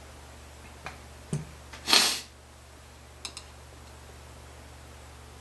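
A few light clicks and a knock from metal guitar tuner hardware being handled at the headstock, with one short rush of noise about two seconds in, the loudest sound.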